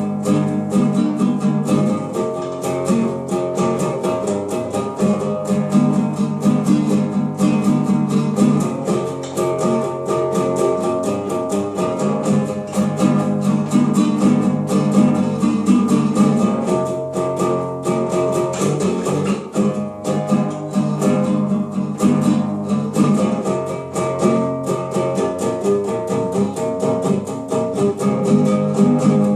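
Small guitar being strummed steadily in quick, even strokes, the chords changing every second or two, to show off its sound.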